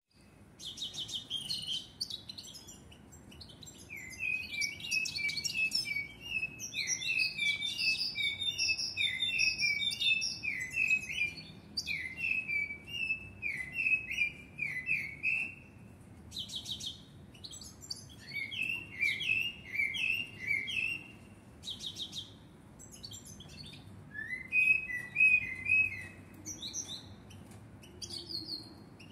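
Caged common blackbird singing: a long run of quick, repeated rising notes mixed with higher squeaky notes, then shorter phrases with pauses between them.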